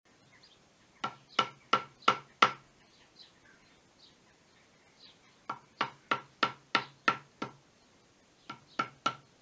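Wooden mallet striking a wood chisel, chopping into a piece of wood held in a bench vise: sharp knocks in three runs of five, seven and three blows, about three a second.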